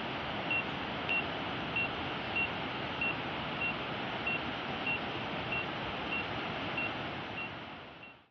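Drone controller app's obstacle-proximity warning beeping: short high beeps repeating about every 0.6 s, over a steady rushing hiss. Both fade out near the end.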